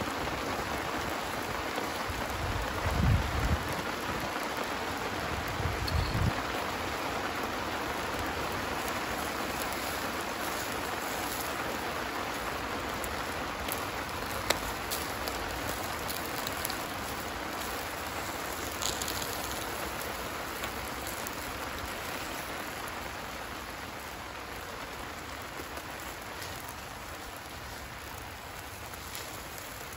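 Lamb chops sizzling over a hot charcoal grill, fat spitting and flaring on the coals: a steady hiss that fades a little toward the end. A few dull knocks sound in the first several seconds and a sharp crackle about halfway through.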